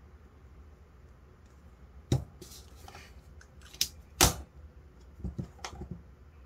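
A pen being capped and set down on a cutting mat: a few sharp clicks, the loudest about four seconds in, then softer knocks as it is laid down, over a faint low hum.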